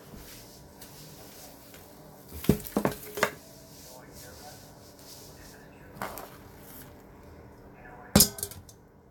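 Kitchenware clattering as dishes and utensils are handled: a quick run of knocks about two and a half seconds in, a single knock around six seconds, and a louder clatter near the end.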